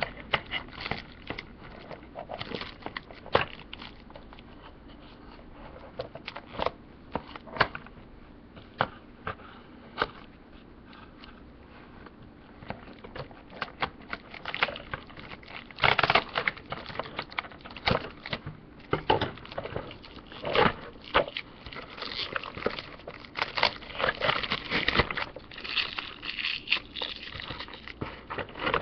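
Clear plastic tape and cellophane crackling and crinkling as it is cut and pulled off a cardboard box, with many short sharp clicks, busier in the second half.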